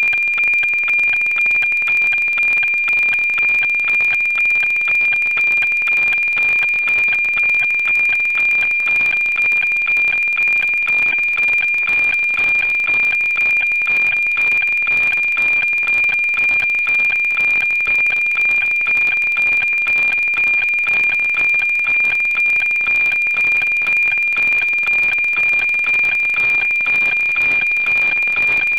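NOAA-19 weather satellite APT image signal on 137.1 MHz, FM-demodulated by a software-defined radio. It is a steady high tone with an even ticking pulse about twice a second, one pulse for each scanned image line.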